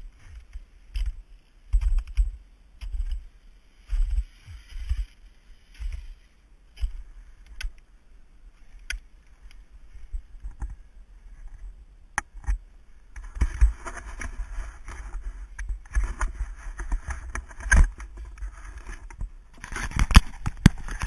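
Footsteps of a climber in crampons walking on snow, about one thud a second, with climbing gear clinking. From about the middle on, louder rustling, scraping and knocking as the helmet-mounted camera is handled and taken off.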